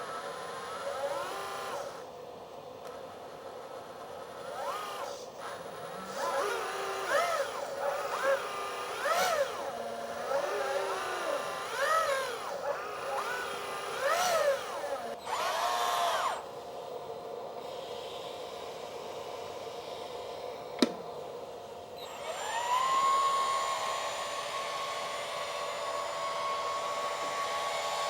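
Hydraulic pumps of an all-metal RC 9800 excavator whining, their pitch rising and falling in many short arcs as the hydraulics are worked. There is one sharp click about three quarters of the way through, and near the end the whine climbs and holds steady.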